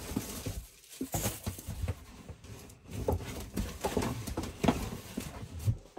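Cardboard model-kit boxes being handled and moved about, giving irregular knocks, scuffs and rustles.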